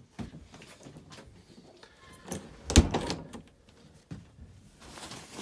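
A travel trailer's wooden interior door with a lever handle being handled and pushed shut, with one sharp knock about three seconds in and a few lighter knocks around it.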